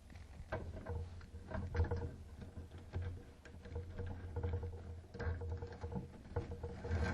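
Irregular light rustling and small clicks of electrical wires being handled and fed through the holes in a control panel's mounting bracket and door, over a low steady hum.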